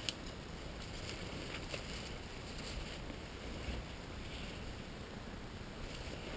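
Faint, steady low rumble of wind on the microphone, with a couple of faint clicks.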